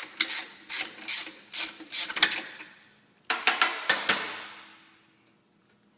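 Ratcheting wrench being worked back and forth in quick strokes, clicking, as it loosens the exhaust bracket bolt on a motorcycle frame. About three seconds in comes a short sharp metallic clatter that rings out and fades.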